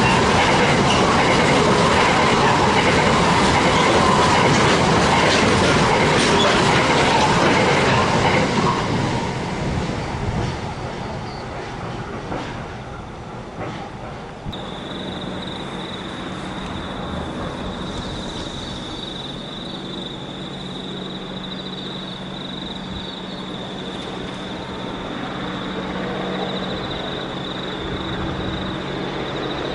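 A long train of Qube grain hopper wagons rolling past, the wheels clattering steadily; the sound fades away about ten seconds in as the tail of the train passes. From about the middle on it is much quieter, with a steady high thin tone and a faint low hum.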